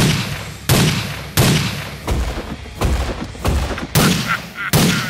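Dubbed gunfire sound effects: a run of about eight heavy shots, roughly one every two-thirds of a second, each with a booming tail that fades before the next.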